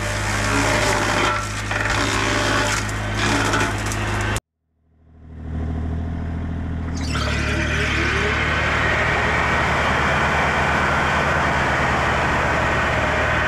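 Bobcat E35 mini excavator running with a Baumalight CXC530 disc mower cutting brush: a steady engine drone with repeated cracking and splintering of wood. The sound cuts out abruptly about four seconds in, then fades back up to the engine and mower running steadily, growing louder and fuller about seven seconds in.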